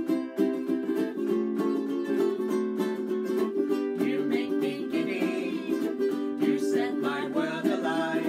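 Two ukuleles strummed together in a steady rhythm. About four seconds in, a man and a woman begin singing over them.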